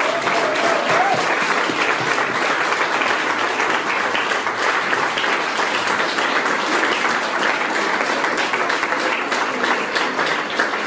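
Audience applauding steadily, dense clapping that holds at an even level throughout, with a brief voice calling out near the start.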